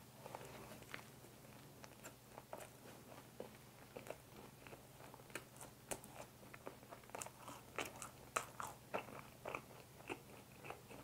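Close-miked chewing of a soft, chewy fresh-cream mocha bun: faint, irregular wet mouth clicks and smacks, coming more often in the second half.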